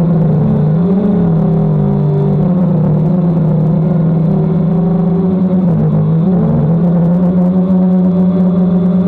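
DJI Phantom quadcopter propellers and motors humming steadily in flight. The pitch dips and swings back up about a second in and again around six seconds in, as the throttle changes while manoeuvring.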